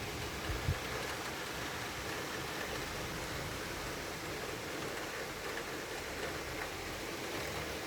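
Steady rain falling in a thunderstorm, an even hiss with no breaks, with a couple of brief low thumps a little under a second in.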